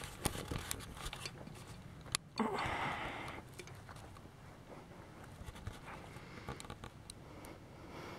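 Faint footsteps and camera-handling noise as someone walks with a handheld camera: scattered small clicks, one sharper click about two seconds in, and a short breathy rustle just after.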